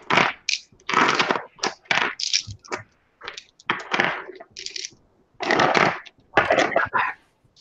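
Loose metal punches and dies from a hand punch set clinking and clattering against each other and the table as they are picked up and gathered by hand, in a string of short, irregular clatters.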